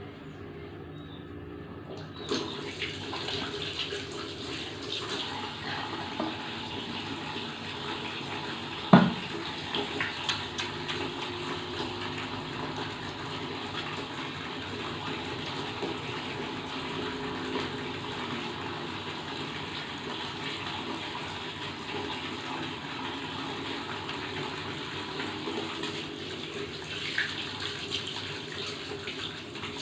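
Tap water running into a sink while hands are washed, starting about two seconds in, with a few clicks and one sharp knock about nine seconds in.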